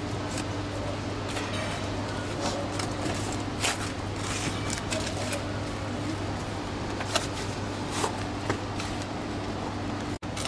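Scattered footsteps and scuffs of sneakers on concrete and stone grave edges, with a few sharp knocks, over a steady low hum.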